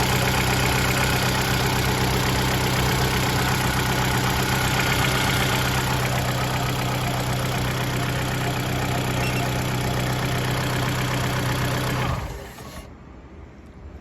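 Mitsubishi Lancer's 2.0-litre 4B11 inline-four idling steadily, with a dull knock from the timing-chain end of the engine that the owner puts down to the valves, while workshops variously blame the timing chain or the cam phasers. About twelve seconds in, the engine sound cuts off abruptly.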